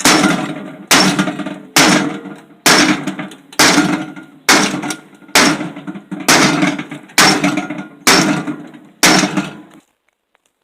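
A microwave oven being struck hard and steadily, about one blow a second, eleven in all, each blow ringing and fading before the next; the blows stop shortly before the end.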